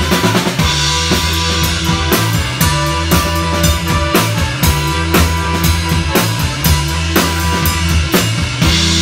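Live rock band playing: a drum kit keeps a steady beat under bass and electric guitar, and a held chord rings in near the end.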